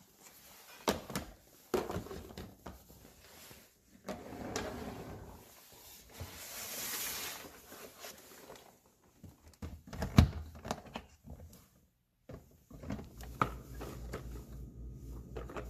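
Plastic food-storage containers, lids and silicone ice trays clacking and knocking as they are handled and set into place in a kitchen cabinet. A short sliding rush comes about six seconds in, and a sharp knock about ten seconds in is the loudest sound.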